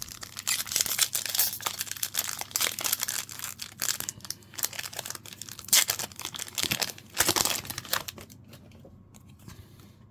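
Wrapper of a 2023-24 Upper Deck Artifacts hockey card pack being torn open and crinkled by hand: a run of sharp crinkling and tearing for about eight seconds, then dying down.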